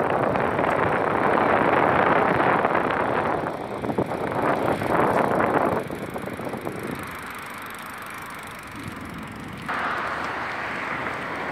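Steady rushing noise of bicycles rolling over brick paving. It drops sharply about six seconds in and comes back near the end.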